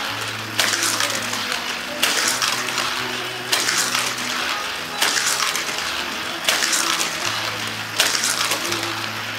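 Hot Wheels die-cast car lapping a loop of toy track through a battery-powered booster. About every second and a half the car is caught by the booster's spinning wheels with a sharp rasping whirr that fades as it rolls on around the track, six times in a row, over the steady hum of the booster motor.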